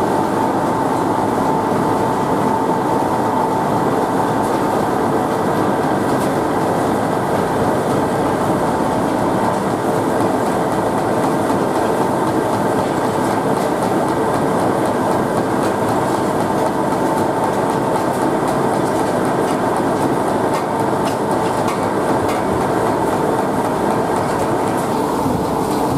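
Wood briquette press and its feed machinery running steadily, with a constant whine over dense mechanical noise.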